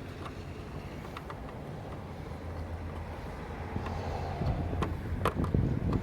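Low rumble of wind on the microphone, building toward the end, with a few light clicks from a taillight mounting screw and trim being handled, the clearest about five seconds in.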